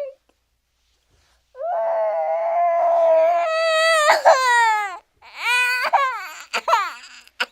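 Cartoon baby-crying sound effect: after about a second and a half of silence, one long wailing cry that rises in pitch near its end, then a few shorter sobbing wails that slide downward.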